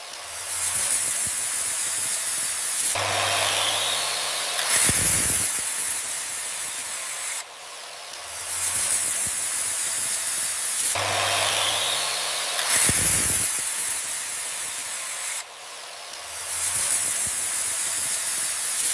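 Miniature circular saw running with a loud hissing noise, a low motor hum and a rising whine, each cycle ending in a short low rumble. The same pattern repeats about every eight seconds and breaks off suddenly each time.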